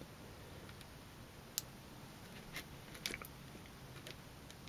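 Faint, sparse clicks and light handling noise of fingers working the servo and receiver leads and their small plastic plug connectors on an RC crawler chassis, a handful of separate ticks over a low hiss.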